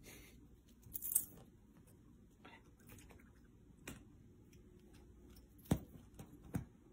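A kitten playing with a string wand toy on an upholstered couch: scattered soft taps and rustles, a brief scuffling rustle about a second in, and two sharper knocks near the end.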